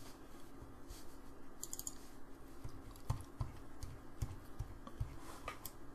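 Scattered clicks of a computer keyboard and mouse, coming in a quicker run in the second half, over a faint steady hum.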